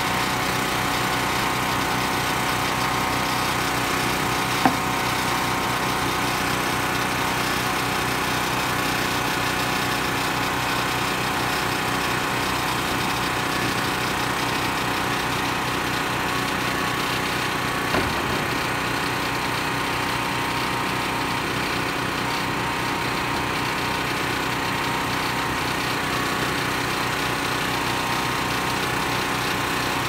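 A small engine running steadily at a constant speed, with two sharp knocks over it, one about four and a half seconds in and one around eighteen seconds in.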